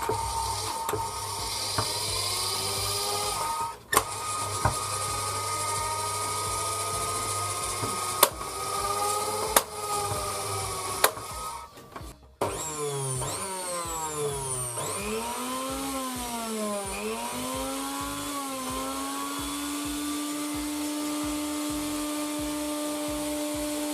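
Juicer mixer grinder's universal motor running on a test with freshly fitted carbon brushes, a steady whine. It cuts out briefly twice, with a few sharp clicks in between. In the second half its pitch rises and dips several times before holding steady.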